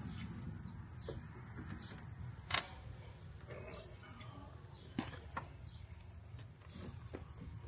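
A few sharp clicks and knocks, two louder ones about two and a half and five seconds in, as a man climbs down out of a truck cab by its step and door handle, over a low steady rumble.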